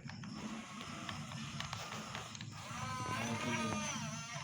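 Small electric motors and gearboxes of radio-controlled construction models running steadily, with scattered clicks. A voice is heard briefly about three seconds in.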